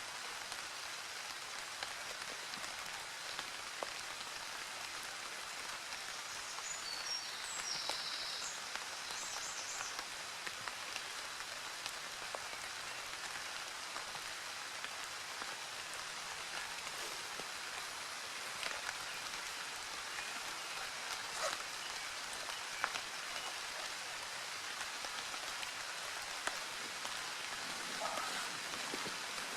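Steady rain falling and pattering on surfaces, with a few faint scattered clicks and a brief high-pitched sound about seven seconds in.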